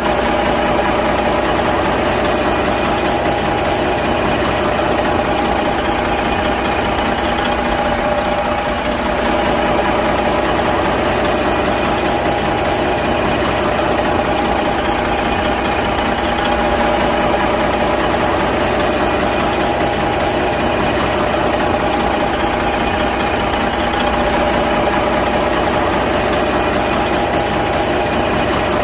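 Big truck diesel engine idling steadily with a continuous knocking clatter.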